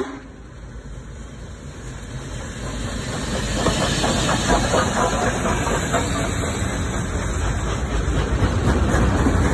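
Union Pacific 4014 "Big Boy" articulated steam locomotive passing close by: steam hissing and the running gear clanking, growing louder as it approaches, with a quick run of rhythmic knocks as the drivers and rods go past.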